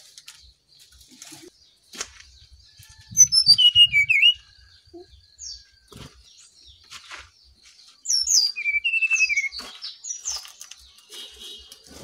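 Brown-chested jungle flycatcher singing: two short phrases of clear whistled notes that fall in pitch, one about three seconds in and one about eight seconds in. A faint steady high tone and scattered soft clicks run underneath.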